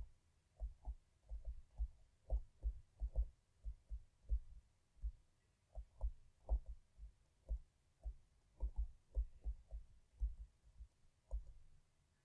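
Stylus writing figures on a tablet: soft, dull, irregular thumps, about two or three a second.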